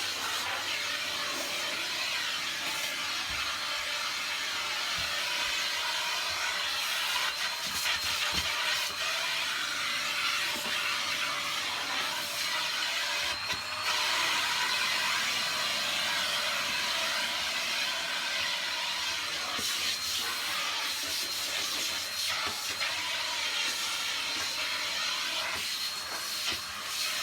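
Vacuum cleaner running steadily, a continuous hiss of air with a thin high whine from the motor. The level dips briefly about halfway through and again near the end.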